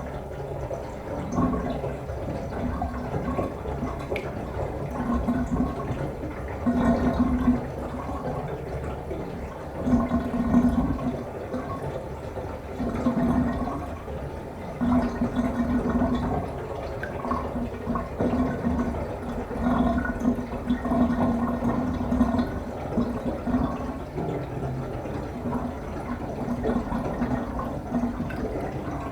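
Bathtub water draining down the plughole: a steady swirling wash broken by deep gurgles that swell up irregularly every few seconds.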